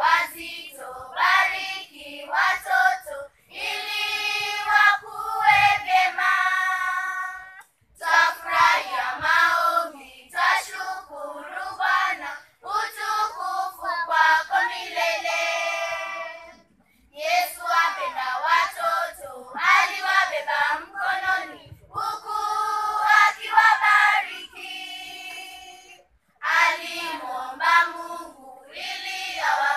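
Children's choir singing unaccompanied, in phrases of a few seconds with short breaks between them.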